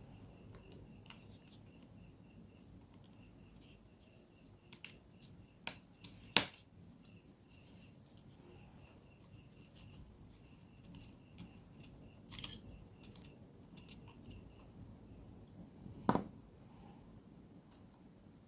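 Scattered sharp clicks and taps of small repair tools and plastic parts being handled while disassembling a Samsung Galaxy A03s smartphone. The loudest click comes about six seconds in, with a cluster around twelve to fourteen seconds and another near sixteen seconds.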